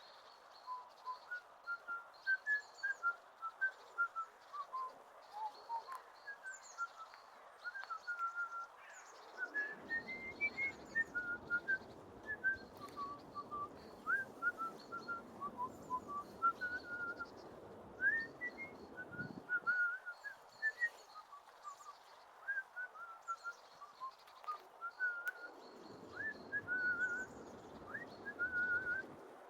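A man whistling a cheerful tune in short, quick notes. Low wind rumble on the microphone comes in about a third of the way through and again near the end.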